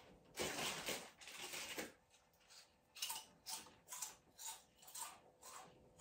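Close handling of a smartphone: a brief rustling scrape about half a second in, then a run of light taps and clicks, about two a second, as fingers work the screen.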